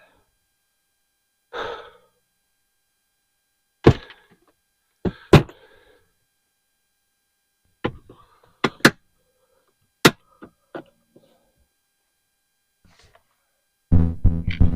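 Hard objects being handled and set down, giving a string of separate thunks and knocks with pauses between them, about ten in all. Near the end, music with a steady pitch begins.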